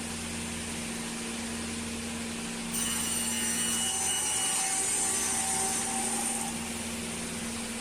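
Woodworking power saw running with a steady hum, then cutting through a board for about four seconds from roughly a third of the way in, with a louder whining, rasping sound before it drops back to the idle hum.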